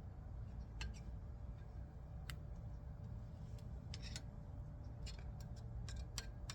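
Scattered light clicks and taps of brake parts and hand tools being handled during a front brake pad job, irregular and more frequent in the second half, over a steady low hum.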